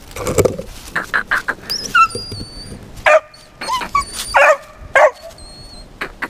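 Squirrel dog barking up a tree. A quick run of short yips comes about a second in, then three louder barks in the second half.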